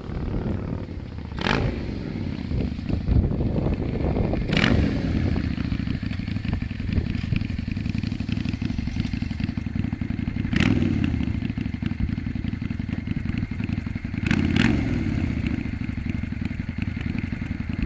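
Honda Steed bobber's V-twin engine running, blipped four times. Each blip is a sharp rise in revs that falls back to idle.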